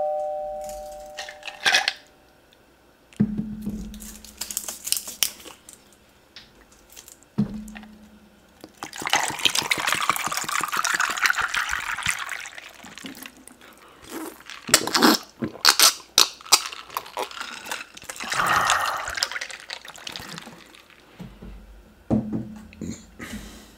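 Water poured from a plastic bottle into a drinking glass in a steady rush lasting about three seconds, with a shorter second rush of liquid later. Soft knocks and clicks from the bottle and glass being handled come before and after.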